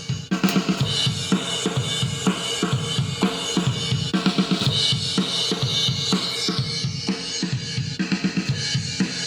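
Drum kit playing a busy beat of kick, snare and cymbals, run through a Pye PI-3141 compressor set to a 5:1 ratio with 100 ms decay. A cymbal crash comes just after the start, and cymbal wash rises in the middle.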